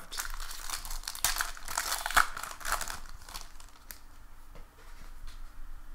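A baseball card pack's wrapper crinkling and tearing as it is ripped open for about the first three seconds, followed by quieter handling of the cards with a few light clicks.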